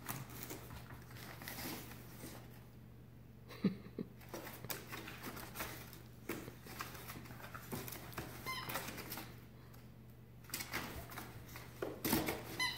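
A puppy rummaging and wriggling among toys in a woven basket: scattered rustling, soft knocks and scrabbling, with a few brief high-pitched squeaks about two-thirds in and near the end.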